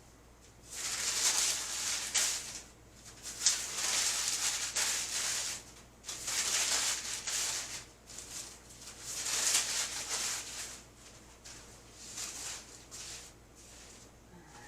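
Bursts of rustling, each lasting one to two seconds, repeated five or six times with short pauses between: something dry being handled or shaken.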